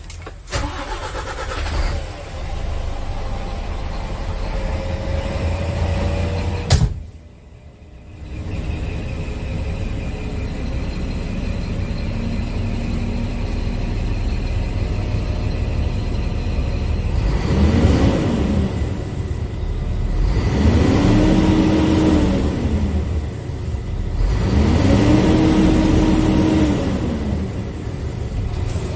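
Scania P-series truck diesel engine heard from inside the cab. It comes in just after the start, with a sharp click and a brief drop about seven seconds in, then runs steadily at idle. It is revved three times near the end, each rev rising and falling in pitch.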